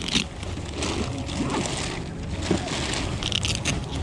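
Clear plastic sheeting rustling and leather motorcycle boots being handled, in a few short bursts, over a steady rumble of wind on the microphone.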